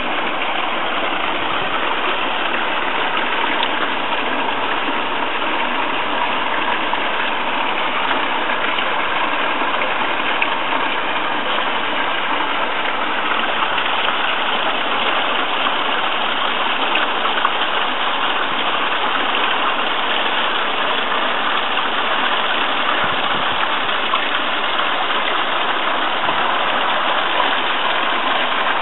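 Water running and splashing into a garden koi pond, a steady rushing hiss.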